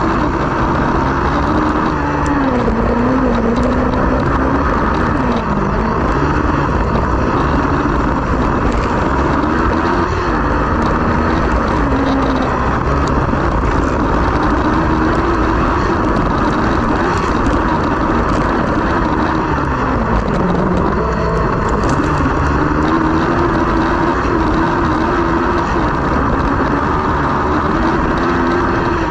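Onboard sound of a dirt-track autocross buggy's engine at race pace, its pitch repeatedly rising and falling as the driver accelerates and backs off, heard from inside the cockpit over heavy wind and tyre noise.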